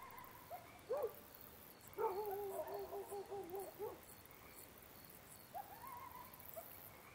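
Faint night ambience: short hooting bird calls that rise and fall, with a longer wavering call from about two to four seconds in, over faint insect chirps ticking at an even pace.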